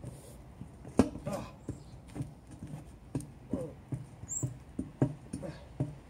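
A rubber car tyre knocking and squeaking under someone's feet as she stands and treads on it to force the bead down over the wheel rim. A sharp knock or short squeak comes every half second or so.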